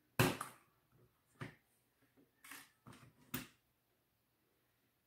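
A few short clicks and knocks, the loudest right at the start: the hands of a wall clock being popped off their spindle and handled on the table.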